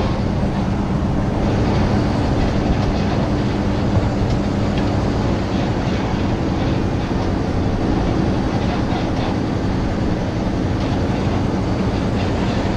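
The big-block 460 V8 of a Ford F350 pickup running steadily while driving off with an empty boat trailer in tow, over road noise with scattered rattles.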